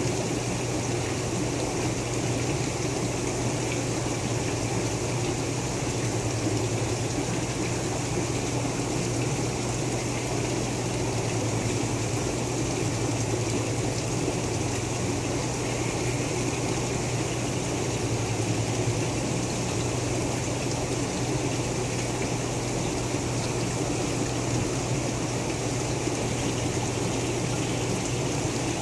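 Water pump running steadily, a low hum under the constant sound of water running and splashing as it circulates water through the tub.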